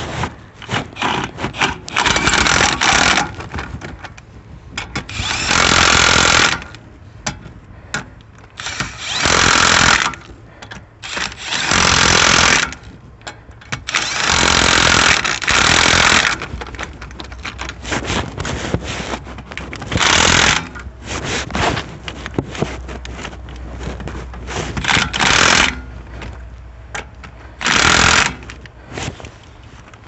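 Impact wrench running the wheel's lug nuts in repeated bursts of one to two seconds, with clicks and knocks in between.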